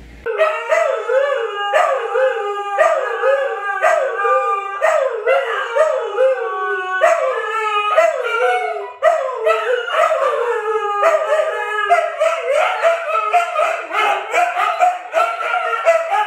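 Siberian huskies howling together. First comes a quick string of short calls that fall in pitch, then a brief break about nine seconds in, then longer overlapping held howls toward the end.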